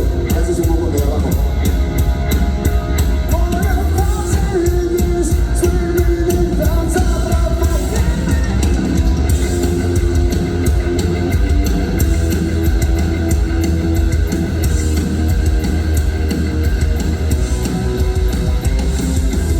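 Rock band playing live during a sound check: heavy electric guitar over bass and a drum kit, at a steady loud level.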